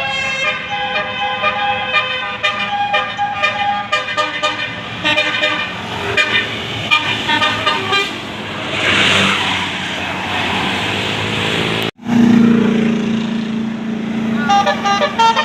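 Tour bus's Basuri 'telolet' multi-tone air horn playing a quick tune of shifting notes, then a burst of hiss about eight seconds in. After a sudden break near the end comes a loud low steady note, then the tune of quick notes again.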